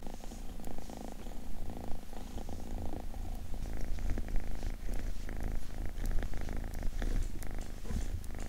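A kitten purring steadily.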